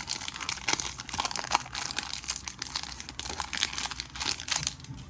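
Foil wrapper of a Pokémon booster pack crinkling as it is torn open and handled: a dense run of papery crackles that thins out near the end.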